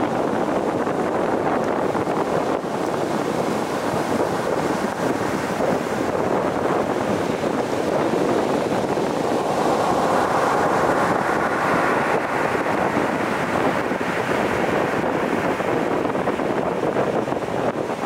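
Stormy Black Sea surf breaking on a pebble beach: a continuous rushing wash of waves. Around ten seconds in a bigger wave crashes and the wash swells brighter for a few seconds.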